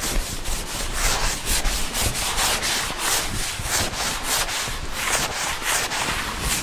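Blackboard duster wiping chalk off a blackboard in rapid, rhythmic back-and-forth rubbing strokes.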